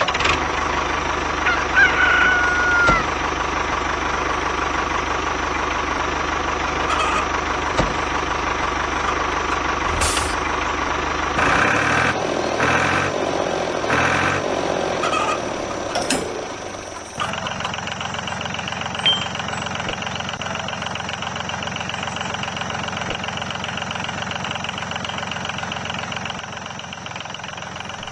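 Tractor engine running steadily while a rooster crows and hens cluck. About two-thirds of the way through, the engine sound drops and settles into a different, steady running note.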